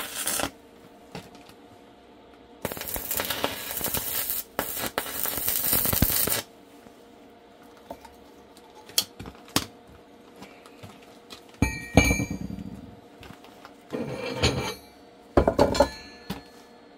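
Hard objects, metal or glass, clinking and being handled, with a few seconds of steady hissing near the start.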